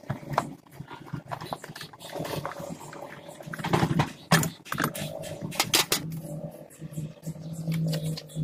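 Irregular clicks, taps and scrapes of a screwdriver and hands working at plastic steering-column trim, with louder knocks around the middle. A low steady hum sits underneath in the later part.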